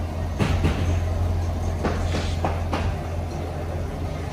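The Camaro LT1's 6.2-litre V8 idling with a steady low hum. Several sharp knocks and clicks come about half a second in and again around two seconds in.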